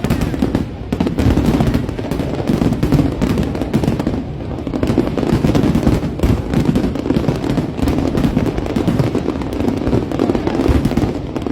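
Fireworks display: a dense, continuous barrage of overlapping bursts and booms with no gaps between them.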